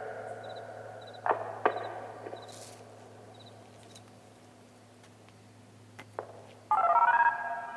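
The tail of a Whelen WPS-2905 siren's voice message echoing back and fading away, with a couple of sharp echoed syllables about a second in. Near the end the siren starts a loud tone abruptly.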